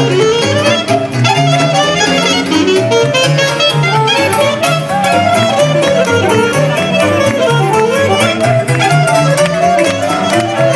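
Live Romanian taraf (traditional lăutari band) playing fast dance music through a PA, a violin carrying a busy melody over a bouncing bass line and a quick, even beat.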